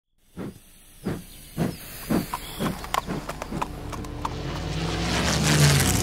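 Rhythmic puffing strokes, each with a hiss, coming faster and faster and merging into a steady drone that grows louder and rises in pitch.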